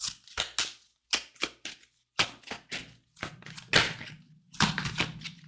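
A quick run of sharp taps and clicks from tarot cards being handled and laid down on a table, with a faint low hum joining about halfway through.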